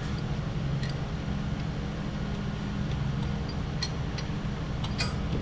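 A steady low mechanical hum, with a few light metal clicks, the clearest about five seconds in, as a hand works at a broken exhaust manifold bolt on the cylinder head.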